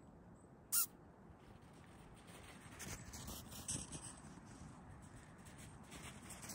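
Soft, irregular footsteps in snow, setting in about two seconds in, with a single sharp click about a second in.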